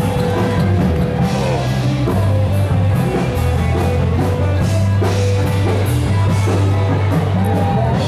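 Rock music from a band: drum kit, a steady bass line and guitar playing loudly.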